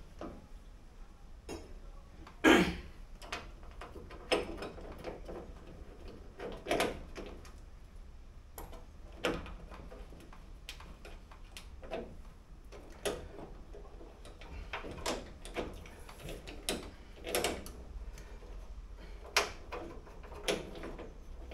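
Scattered metal clicks, taps and knocks as a small linkage rod and the lock mechanism are worked into place by hand inside the bare steel door shell of a Toyota Corolla KE20. The loudest knock comes about two and a half seconds in.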